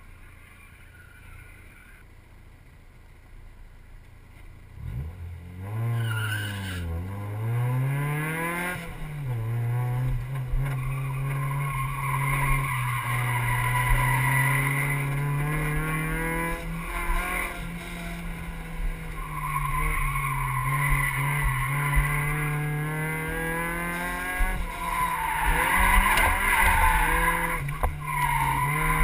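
Mazda MX-5 Miata's four-cylinder engine heard from inside the cabin: quiet for the first few seconds, then revving up and down sharply about five seconds in and pulling steadily at high revs. Tires squeal in repeated stretches through the corners.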